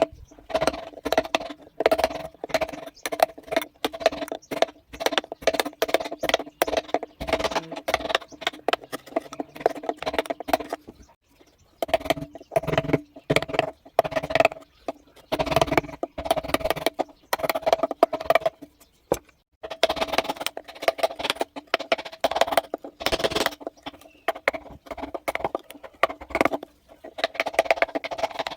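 Mallet rapidly tapping a carving chisel into wood, several hollow, ringing knocks a second, with brief pauses about eleven and nineteen seconds in.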